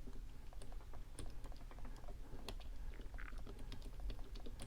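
Small irregular clicks from the number wheels of a combination padlock being turned notch by notch while the shackle is pulled under tension, as each position is felt for a loose one to decode the combination.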